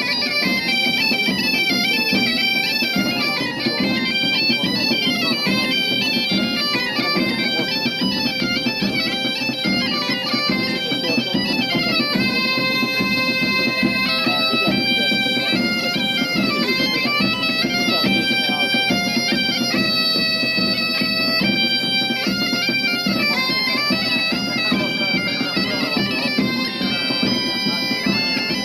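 Bagpipe music: a fast, shifting melody played over a steady, unbroken drone.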